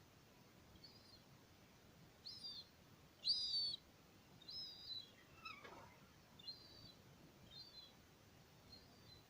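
Bird calling: a series of about nine short, high calls, the loudest about three seconds in, with a fainter falling sound about halfway through.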